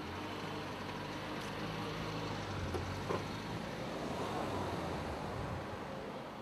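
Car engine running at a steady low speed, without revving, as a dark estate car pulls away along the track.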